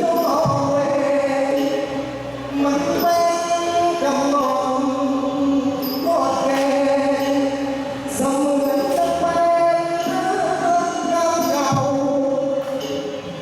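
Live Thai stage music: a sung melody in phrases of long held notes over an instrumental accompaniment.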